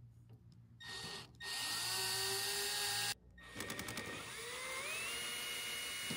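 Small cordless drill-driver backing out the screws of an aircraft tail beacon's mounting base: a short burst, then two longer runs, the motor's whine climbing in pitch as it speeds up in each.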